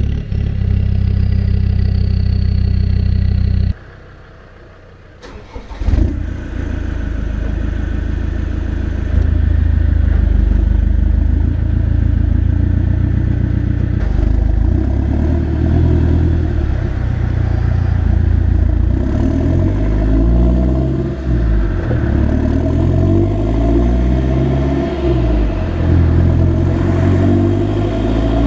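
Land Rover turbodiesel engine with a stainless steel exhaust, running with a faint high turbo whistle, then stopping abruptly about four seconds in. A couple of seconds later it starts up again and runs, revved up and down repeatedly.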